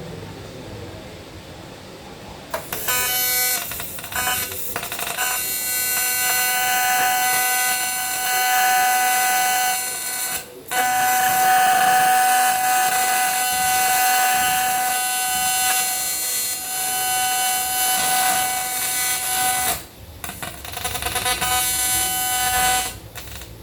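Small high-speed power tool, such as a grinder, whining steadily in three long runs, with brief stops about ten and twenty seconds in.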